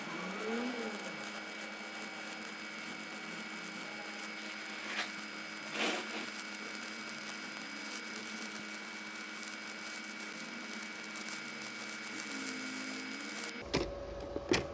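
Stick-welding arc of a Novoarc 200K inverter welder burning a 4 mm electrode: a steady frying hiss with a faint hum underneath. It stops abruptly near the end.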